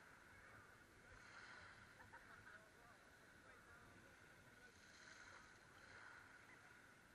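Near silence: faint, muffled sound of a calm sea at the waterline, swelling gently now and then.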